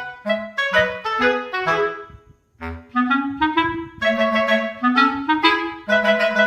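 Background music: an instrumental melody of separate notes, each starting sharply and fading, with a brief pause about two and a half seconds in.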